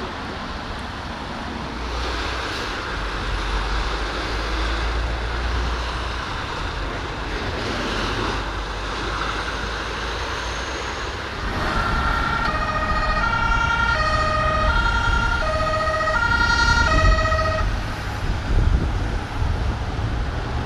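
Emergency vehicle's two-tone siren, stepping back and forth between a high and a low pitch about every half second. It comes in about halfway through, lasts about six seconds and stops suddenly, over steady motorway traffic and engine noise.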